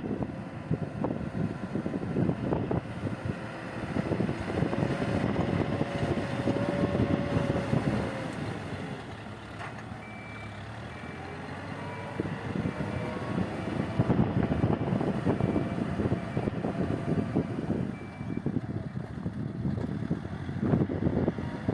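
Heavy earthmoving machine working, its engine labouring with a whine in the first half. Partway through, its reversing alarm beeps about once a second for several seconds.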